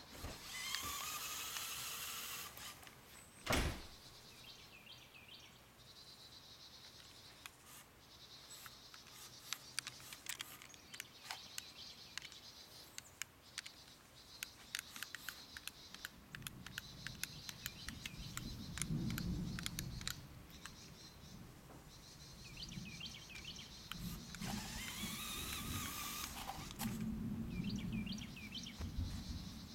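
LEGO Technic remote-control car's small electric motors whirring in bursts as it drives over concrete, the whine rising and falling in pitch as it speeds up and slows. Scattered clicks and a low rumble come in between the bursts.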